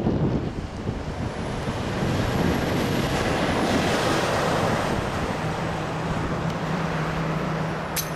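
A passing vehicle, heard as a rushing noise that swells to a peak about four seconds in and then eases off. A steady low hum comes in over the last few seconds, and there is a sharp click at the very end.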